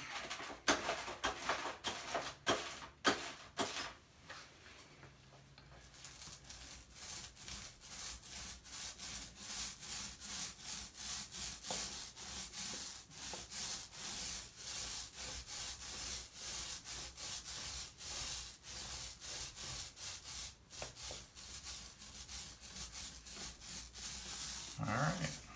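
Paint roller rolling paint onto a drywall wall in repeated back-and-forth strokes, a rhythmic rubbing at about two to three strokes a second.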